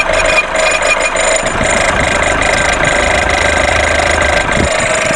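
VW Golf VI 1.4 TSI (CAXA) turbocharged four-cylinder petrol engine running at idle with a rapid, even metallic ticking over it. The mechanic calls it a metallic, nasty noise and suspects it comes from the high-pressure fuel pump.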